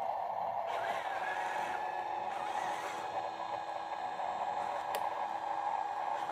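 Steady whine of a radio-controlled toy's small electric motor and plastic gears running, with one sharp click about five seconds in.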